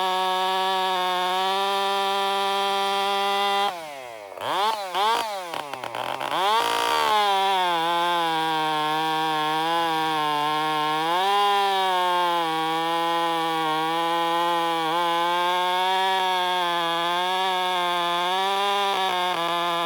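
Two-stroke chainsaw running at high throttle with a freshly filed chain. About four seconds in it drops off and revs down and up several times, then runs again at a high, slightly wavering speed, as it does when pulling through a cut.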